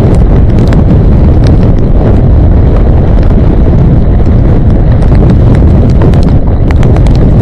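Strong wind of about 8 to 10 metres a second buffeting the microphone, a loud and constant rumble, with scattered sharp clicks throughout.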